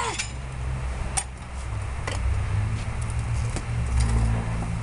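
Low rumble of wind buffeting the camera microphone outdoors, with two faint clicks about one and two seconds in.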